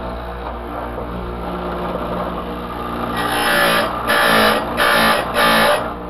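Oregon electric bench chain grinder with its motor running steadily, then the grinding wheel is brought down onto a chainsaw cutter tooth about three seconds in and grinds it in four short touches of about half a second each, sharpening the tooth.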